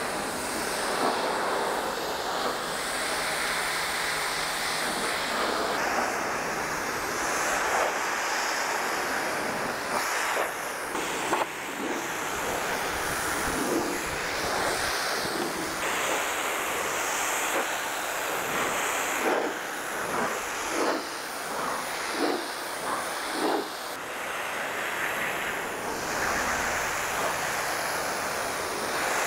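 Pressure washer jet spraying water onto a pickup truck's body panels: a steady hiss of spray whose tone shifts as the jet moves across the surfaces. A run of short louder spurts comes in the second half.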